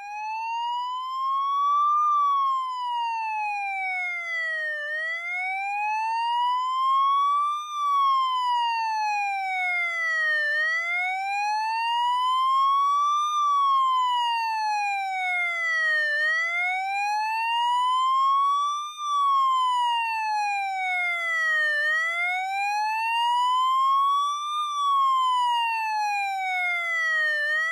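Police motorcycle siren sounding a slow wail: one pitch rising and falling smoothly, about one rise and fall every six seconds, repeated five times.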